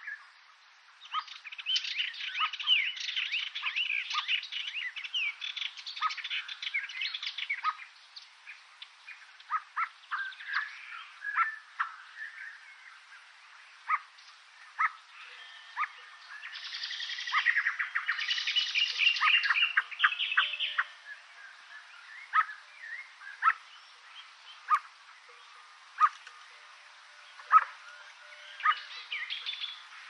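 Wild birds singing: two long stretches of dense twittering song, with single short chirps scattered between them.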